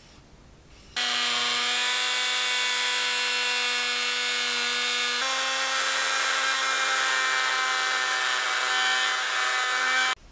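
Handheld power tool switched on, running with a steady high whine while cutting the slot for the bobstay fitting in the boat's bow. It starts suddenly about a second in, drops a little in pitch about five seconds in, and cuts off suddenly near the end.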